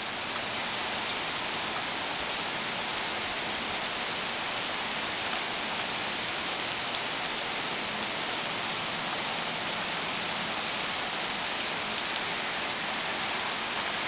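Heavy rain falling on a paved driveway, grass and trees: a steady, even hiss that does not let up.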